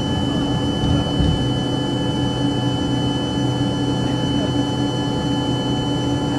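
Cabin noise inside an Embraer ERJ-145 climbing out just after liftoff: its twin rear-mounted Rolls-Royce AE 3007 turbofans run steadily at high power, a constant rushing noise with a steady high whine and a low drone.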